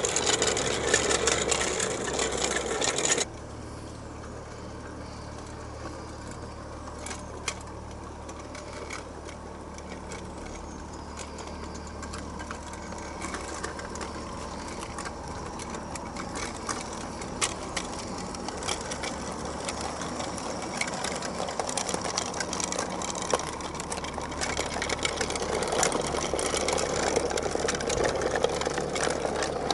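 Model garden-railway locomotive running: the steady whirr of its small electric gearhead motor and bevel-gear drive, with scattered clicks from the wheels on the track. About three seconds in the sound drops suddenly, then grows louder as the train comes close.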